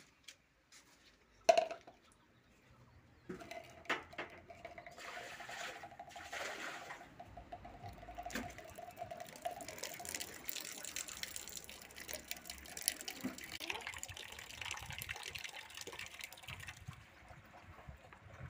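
Water running from an outdoor brass wall tap and splashing onto a concrete floor and into a cup, after a sharp knock about a second and a half in. A steady thin tone sounds over the first several seconds of the flow, and the water fades out about a second before the end.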